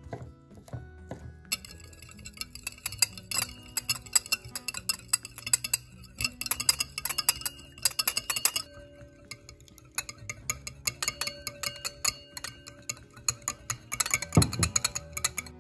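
Background music over rapid runs of sharp clicks and clinks from kitchen prep work. The clicks break off briefly a little past the middle, then resume, and there is a heavier thump near the end.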